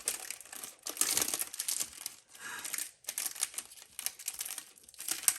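Plastic wrapping on a Peeps candy package crinkling and crackling in bursts as it is pulled and torn open, with a few short pauses.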